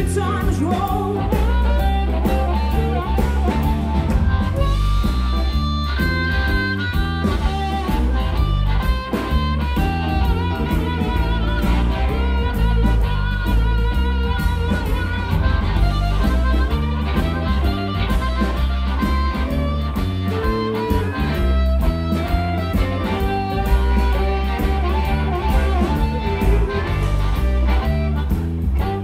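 Live blues band playing loud and steady: electric guitars, bass guitar and drum kit over a driving beat, with held, bending melody lines above.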